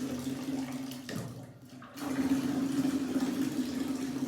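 Water running out of a water heater being flushed of sediment, a steady rush with a steady low tone through it. The flow drops away about a second in and picks back up about two seconds in.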